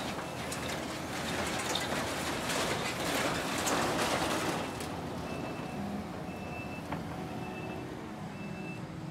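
Kubota skid steer working, loud and noisy with some sharp clanks for the first half, then its backup alarm beeps four times, about once a second, as the machine reverses.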